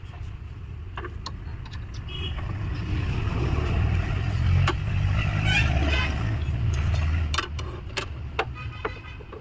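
A car's engine rumbling low, swelling over a few seconds and then easing off, with scattered sharp clicks and knocks.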